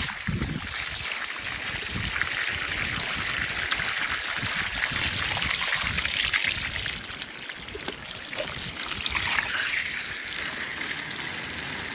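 Water running and trickling steadily, a continuous splashing hiss, with uneven low rumbles underneath.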